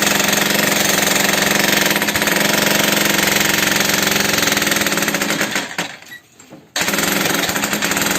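Electric concrete breaker (demolition hammer) running with rapid hammer strokes. It winds down a little over five seconds in, falls quiet for about a second, then starts hammering again abruptly.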